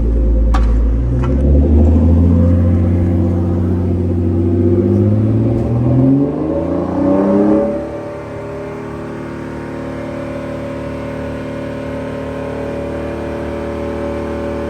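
Twin-turbocharged Infiniti G35's 3.5-litre V6 being revved while it warms up: held at raised, wavering revs that climb to a peak about seven and a half seconds in, then drop back to a steady idle.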